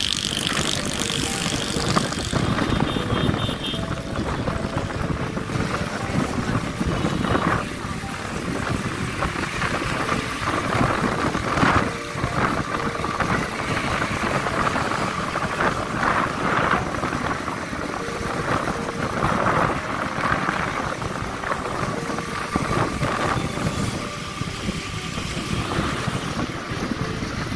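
A car's steady road and wind noise while driving, with faint voices in the background.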